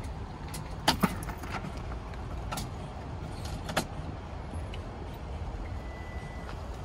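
Plastic dog crate doors being shut and latched: two sharp clacks about a second in and another just before four seconds, over a steady low outdoor rumble.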